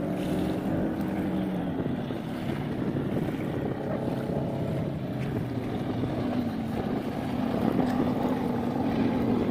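Supercharged 496 cubic-inch V8 of a Cougar MTR 21 jet boat running out on the water, a steady engine drone that grows louder in the last couple of seconds as the boat comes closer. Wind buffets the microphone.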